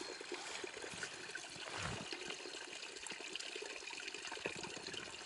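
River water trickling and flowing steadily, with a soft low thump about two seconds in.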